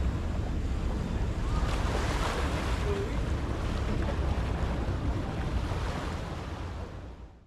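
Wind buffeting the microphone over the steady wash of sea waves. It fades out near the end.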